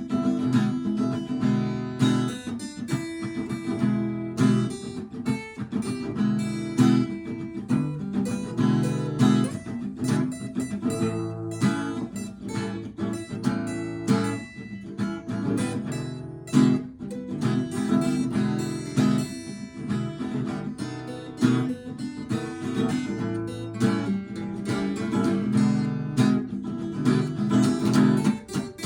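Acoustic guitar strummed and picked through an instrumental blues break, with a steady run of chord strokes.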